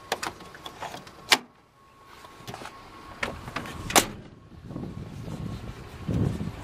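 Scania truck cab door being shut with a sharp click about a second in, then a second sharp click a few seconds later. Low rumbling handling noise follows near the end.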